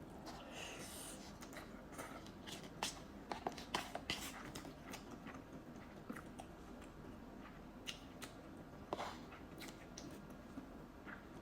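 Close-miked chewing of ramen noodles: soft wet mouth clicks and smacks at an irregular pace, busiest a few seconds in.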